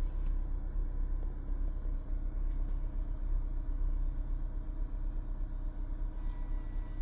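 Steady low rumble of a car cabin, from the Honda CR-V. Over it runs a faint high hiss, the electrical hiss that the aftermarket Joying head unit is being shown to make. The hiss drops out about half a second in and comes back near the end.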